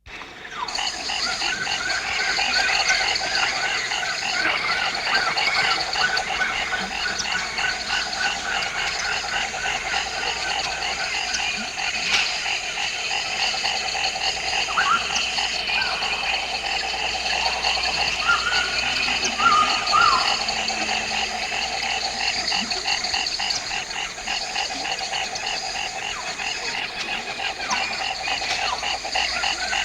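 Dense wetland chorus of many frogs calling at once: overlapping, rapidly repeating pulsed calls at several pitches, steady throughout. A few short, separate higher calls stand out around the middle.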